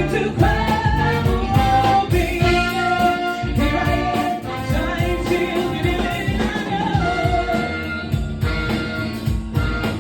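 Soul band music with a lead singer over a steady beat.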